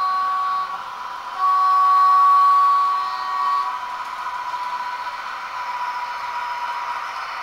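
Märklin model locomotive's digital sound playing through its small speaker: two horn blasts, a short one and then a longer one about a second and a half in, over the loco's running sound with a steady whine as the train approaches the station.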